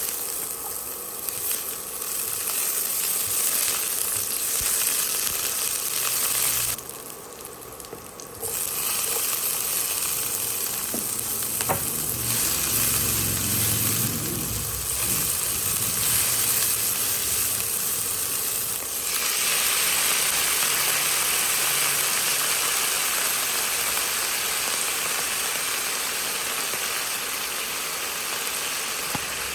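Food frying in hot oil, sizzling steadily; the sizzle drops away briefly about seven seconds in, then returns and grows louder about two-thirds of the way through.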